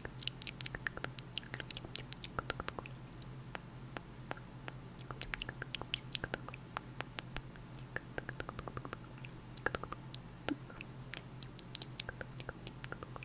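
Close-miked ASMR mouth sounds on a lavalier microphone: irregular wet clicks and pops, several a second, over a low steady hum.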